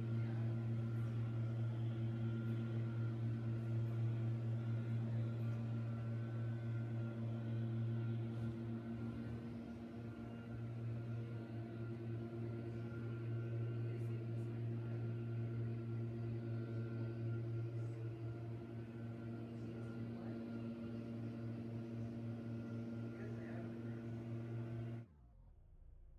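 Backpack leaf blower engine running steadily at a constant pitch, dipping in level briefly around a third of the way in, then stopping suddenly near the end.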